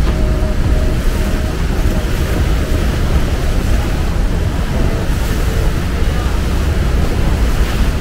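Steady rushing roar of the Rhine Falls and the churning whitewater at its foot, heard close up from a small boat, with wind buffeting the microphone.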